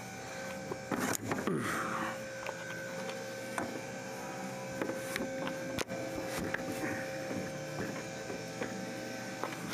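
A steady electrical hum with a constant mid-pitched tone, broken by a few sharp clicks and knocks.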